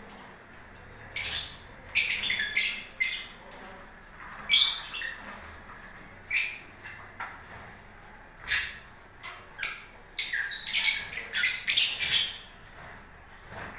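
Lovebirds giving short, sharp, high-pitched squawking calls, some single and some in quick runs, busiest near the end.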